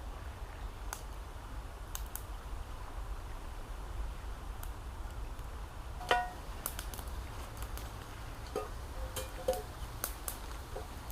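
Campfire crackling: sparse sharp pops and clicks over a steady low rumble, with a few short pitched notes about six and nine seconds in.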